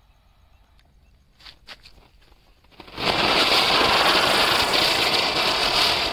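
Ground spinner firework (chakri) catching about three seconds in and spinning with a loud, steady hissing rush, after a couple of faint crackles from the fuse.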